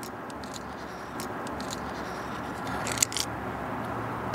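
Light scraping and scattered clicks of a hand deburring tool against the inside of a freshly cut copper pipe end, with a cluster of clicks about three seconds in, over a steady background rumble.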